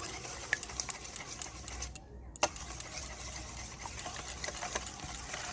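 Hand-stirring cake batter of sugar, oil and beaten eggs in a bowl: a run of quick clicks and scrapes of the utensil against the bowl, with a brief break about two seconds in.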